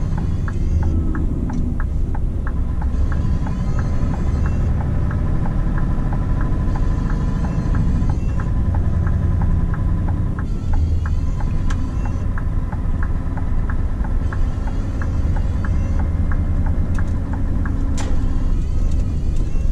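Scania R520's V8 diesel engine running under way, heard inside the truck cab as a steady low rumble, with a regular light ticking at about three a second.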